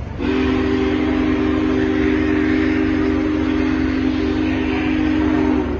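Union Pacific Big Boy 4014 steam locomotive's whistle blowing one long blast of about five and a half seconds: a steady chord of several low tones over a breathy hiss, starting and stopping abruptly.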